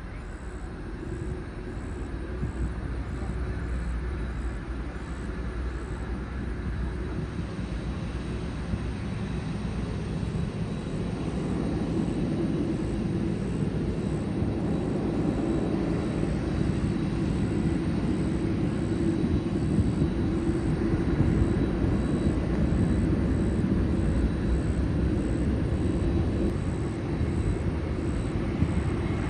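Jet airliner engine noise and rumble, steady and gradually growing louder, as on a takeoff roll.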